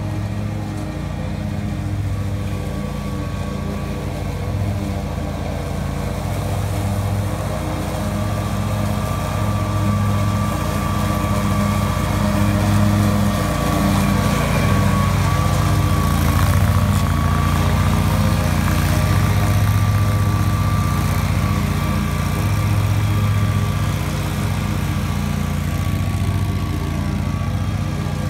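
Dixie Chopper zero-turn riding mower running under load while cutting wet grass: a steady engine drone with a thin high whine over it. It grows a little louder toward the middle and eases off near the end.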